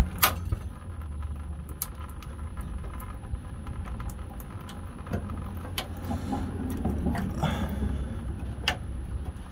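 Several separate metallic clicks and knocks of hand tools and parts being worked under a pickup truck, over a low steady hum.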